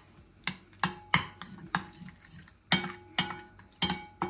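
A utensil clinking against a bowl while stirring a chopped tomato, garlic and olive-oil mixture: a run of irregular clinks, some ringing briefly, with a pause of about a second in the middle.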